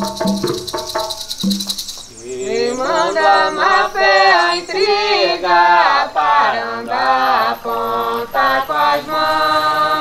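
Group of voices singing a Santo Daime hymn. A shaken rattle keeps an even beat for the first two seconds. About two seconds in, the sound changes to voices singing a melody together, which settles into held notes near the end.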